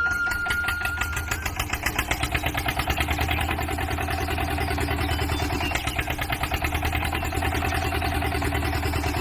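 Small engine of a DIY mini tractor running steadily with a fast, even putter. The tail of a held musical note fades out about a second and a half in.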